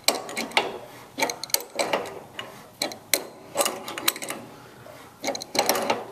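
Metal wrenches clicking and clinking against a brass steam valve nut in short bursts of sharp knocks, as the nut is tightened down to crush a new gasket flat.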